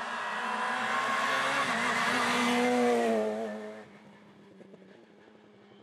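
Peugeot 106 rally car's engine running hard at high revs as the car passes at speed, its pitch wavering. The sound falls away quickly about four seconds in as the car drives off.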